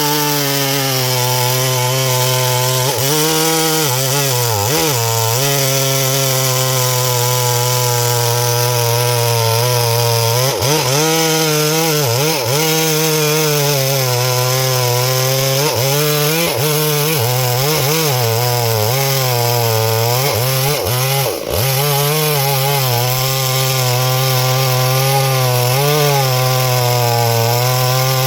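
Small chainsaw running at high revs while cutting into a tree; its pitch dips briefly and recovers several times as the chain loads up in the wood.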